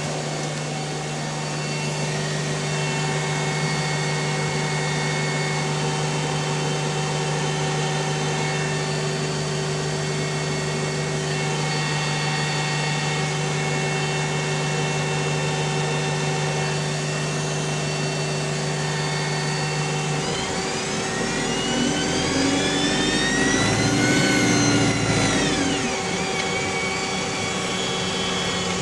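Alexander Dennis Enviro200 single-deck bus with a Voith automatic gearbox running steadily at first, then pulling away about twenty seconds in: a whine rises in pitch with the engine working harder, peaks about four seconds later and drops away as the gearbox shifts up, then settles to a steady run.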